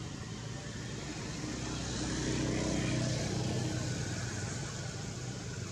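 An engine passing by: a low steady drone under a rushing hiss that swells to its loudest about halfway through, then fades.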